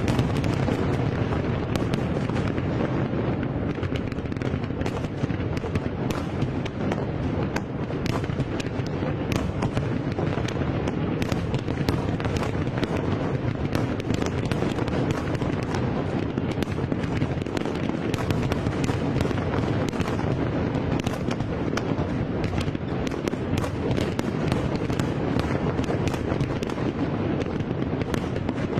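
Fireworks display: a dense, continuous barrage of bursts over a steady low rumble, with many sharp cracks and crackles close together.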